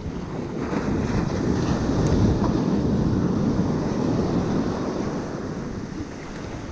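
Ocean surf washing up the beach, swelling over the first couple of seconds and slowly easing off, with wind buffeting the microphone.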